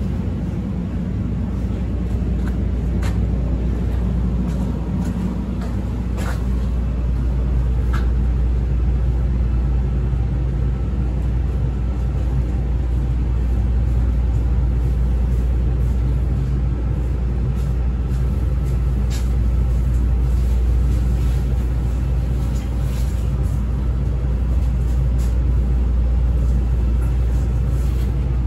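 Steady low rumble and hum inside a CTA 5000-series rapid transit car, with a few sharp clicks now and then.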